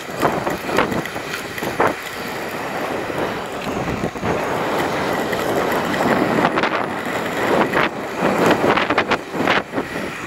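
Wind buffeting the camera microphone as it moves along the street, over a steady rolling rush, with several sharp knocks and rattles, most of them in a cluster in the last few seconds.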